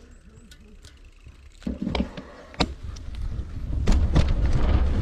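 Mountain bike riding over a rough trail: a low rumble with many sharp rattles and knocks, setting in about a second and a half in after a quieter start and growing louder near the end.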